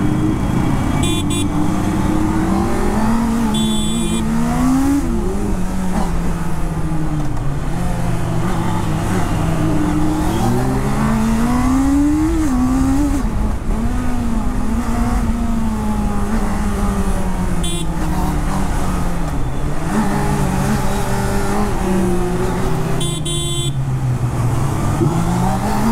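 Honda CBR650R inline-four engine heard from the rider's seat, revving up and falling back again and again as it filters through traffic. A few short horn beeps cut in, about a second in, around four seconds, and twice more later.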